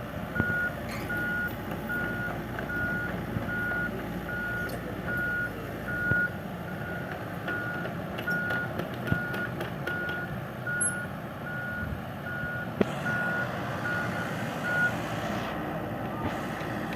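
Back-up alarm on heavy construction machinery beeping at one steady pitch, about four beeps every three seconds, stopping near the end, over the low rumble of the machine's engine.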